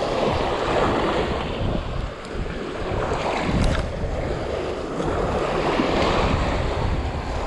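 Small waves washing up and breaking on a sandy beach at the water's edge, with wind buffeting the microphone.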